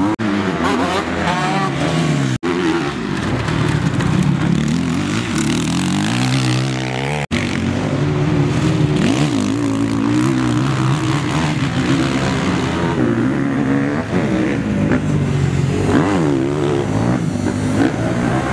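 Four-stroke motocross bike engines revving hard and easing off over and over as the bikes ride the dirt track, the pitch climbing and dropping with throttle and gear changes. The sound cuts out for an instant twice, about two seconds in and about seven seconds in.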